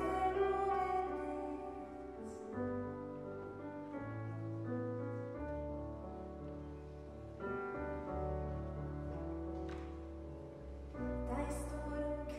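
Live acoustic music: piano and accordion playing steady held chords over a low bass line, the harmony changing every second or two.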